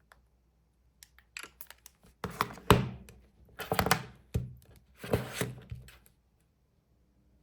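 Handling noises: a few light clicks, then several louder knocks and scraping rubs about a second apart, and quiet again near the end.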